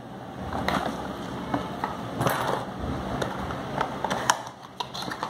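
Cardboard packaging being handled by hand: small boxes rustling and scraping, with a few light clicks and knocks.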